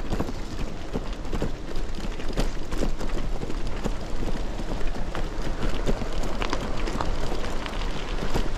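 Bicycle tyres crunching over loose gravel and stones on a rough downhill dirt road, with many sharp knocks and rattles as the wheels hit stones, over a steady low rumble.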